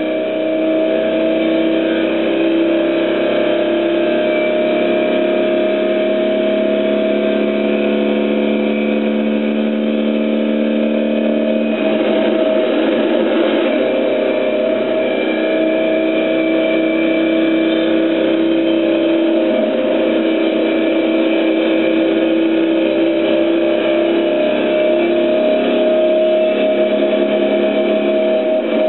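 Vintage car's engine running hard at high revs, heard from inside the cabin. About twelve seconds in, the steady engine note breaks up into a rougher sound for a couple of seconds, then picks up again.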